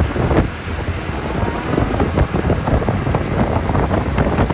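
Wind buffeting the microphone, over a steady low rumble.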